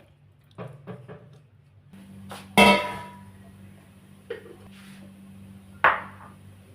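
Kitchen clatter of cookware and utensils: a few light knocks, then a loud ringing metallic clank that dies away over about half a second, and another sharp knock near the end. A steady low hum runs underneath from about two seconds in.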